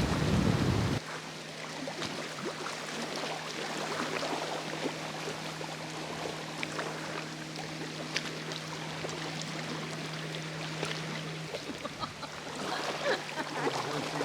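A loud low rushing noise cuts off abruptly about a second in. It is followed by a steady low hum with many faint, scattered ticks.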